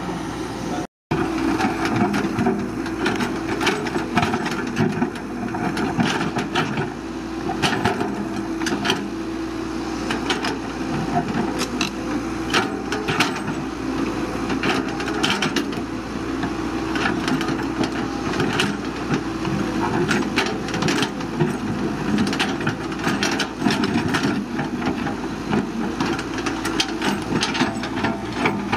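Caterpillar 312BL excavator at work: its engine running with a steady hum under frequent sharp cracks and knocks as it digs and clears.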